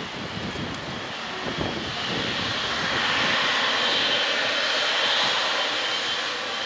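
A Boeing 777 freighter's twin GE90 turbofan jet engines whining while it taxis and turns toward the listener. The sound grows louder from about two seconds in, with a steady high-pitched whine on top of the rushing engine noise.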